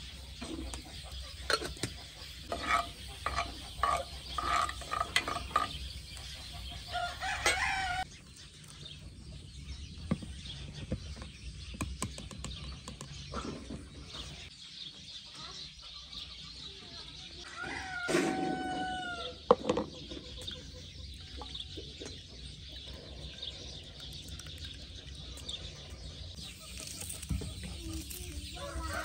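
Village chickens calling: a run of short, evenly spaced clucks a couple of seconds in, and a rooster crowing once, in one long call, about two-thirds of the way through.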